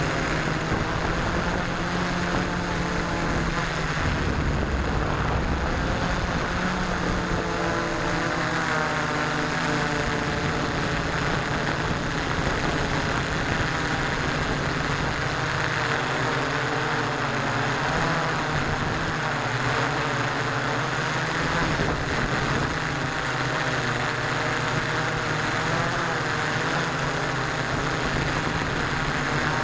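Six electric motors and propellers of an S650 hexacopter running in flight, heard from a keychain camera mounted on the craft: a steady buzzing drone with several pitches wavering up and down as the motor speeds change.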